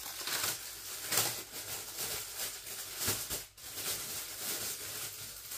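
Plastic packaging crinkling and rustling as it is unwrapped, in an uneven run of small crackles, a little set back from the microphone.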